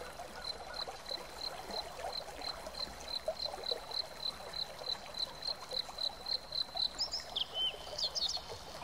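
Outdoor ambience: a short high chirp repeating evenly about three times a second over a steady hiss, with a few other gliding bird-like chirps near the end.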